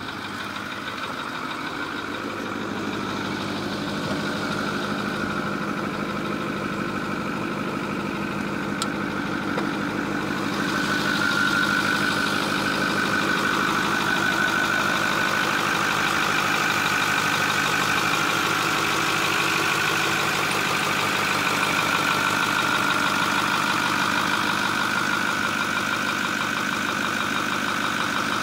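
Ford F550's 6.4-litre Power Stroke V8 turbo diesel idling steadily, getting louder over the first ten seconds or so and then holding even.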